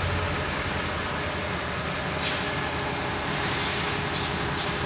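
Diesel engine of a TCM FD50 forklift running steadily as the forklift manoeuvres with a heavy crated load on its forks.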